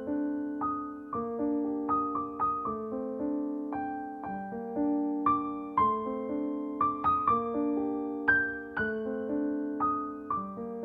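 Background piano music: single notes and chords struck and left to ring.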